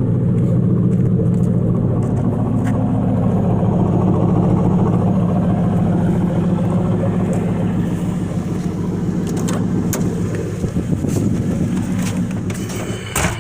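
Ford Crown Victoria Police Interceptor's 4.6-litre V8 idling steadily with its mufflers and catalytic converters deleted, warming up after a cold start. A few short clicks come near the end.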